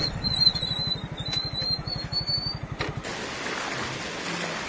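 Motorcycle engine idling with a steady, rapid low putter, with a high wavering whistling tone above it. About three seconds in it cuts off to a steady rushing of floodwater pouring over a road embankment.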